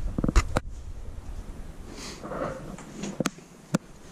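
Quiet handling noises: a few sharp clicks in the first second, a short breathy sound about two seconds in, and two sharp clicks about half a second apart near the end.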